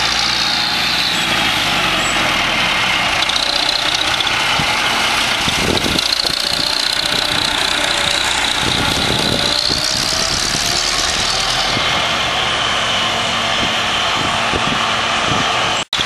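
Massey Ferguson 165 tractor's engine running steadily as it tows a loaded silage trailer past, its pitch rising and falling a little.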